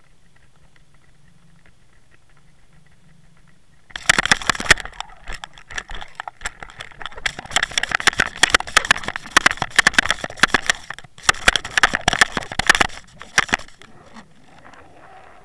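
Underwater recording from a towed trolling camera rig: a faint steady low hum, then about four seconds in a loud, dense crackling and knocking that goes on for about ten seconds while the rig is jostled, ending shortly before the end with a few faint falling tones.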